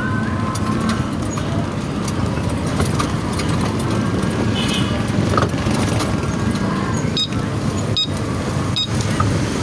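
Electric golf cart travelling, a steady rumble of tyres and rattling with a few sharp clicks in the second half.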